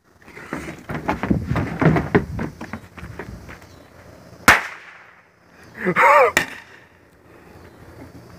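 A small firecracker's lit fuse fizzing and crackling for about three seconds, then one sharp bang. A short wavering cry follows about a second and a half later.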